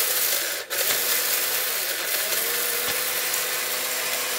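ORPAT 1200-watt mixer grinder running at speed, its steel jar grinding dry turmeric pieces into a fine powder, with a steady grinding rush. The sound drops out for a moment just under a second in, then carries on.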